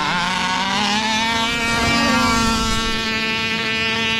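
Small two-stroke petrol engines of large-scale RC trucks running flat out in a drag race. The pitch creeps up over the first couple of seconds, then holds high and steady.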